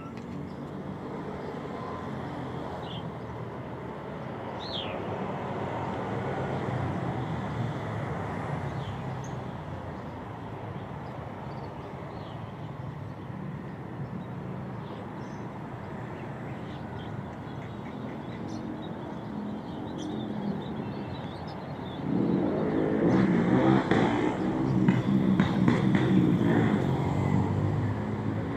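City street ambience with traffic. A motor vehicle gets louder and closer about three-quarters of the way through, and a few short high chirps are scattered through the first part.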